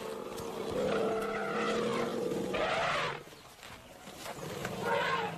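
African elephants calling in a scuffle: a long, fairly steady call for about two and a half seconds that ends in a louder, harsher blast, then a shorter call that bends in pitch near the end.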